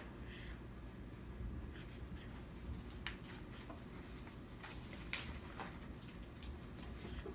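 Felt-tip marker writing on paper: short scratchy strokes come at irregular intervals as characters are written, over a low steady room hum.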